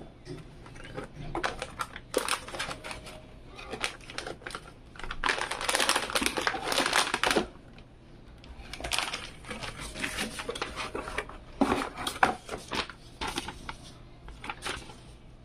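Plastic anti-static bag crinkling and a cardboard box rustling and tapping as a motherboard is lifted out of its packaging. The sound comes in irregular bursts of clicks and crinkles, with the longest stretch of crinkling around the middle.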